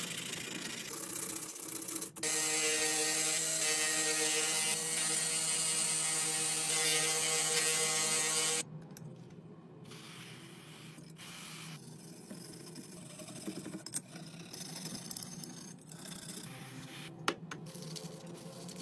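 A small machine runs steadily for about six seconds and stops abruptly. Quieter metallic mechanism clicks and handling noises follow, with one sharp click near the end.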